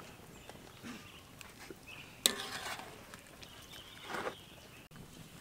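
A long-handled wire strainer scooping boiled meatballs out of a wok of hot water and tipping them into a bamboo basket: quiet splashing and scraping, with one sharp metal clink about two seconds in.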